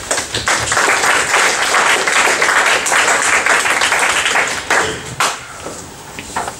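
An audience applauding, building quickly and dying away after about five seconds, with a few last scattered claps.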